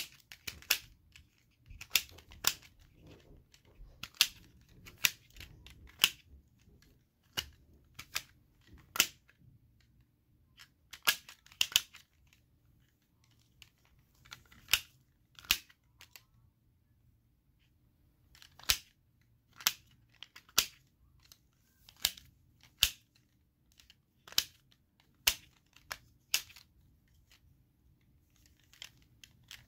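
Plastic puzzle ball fidget toy being twisted section by section to solve it: sharp plastic clicks, often in quick pairs, coming irregularly with a few pauses of two or three seconds.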